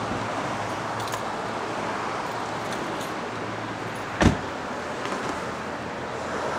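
Steady street traffic noise, with one sharp thump about four seconds in, a car door slamming shut.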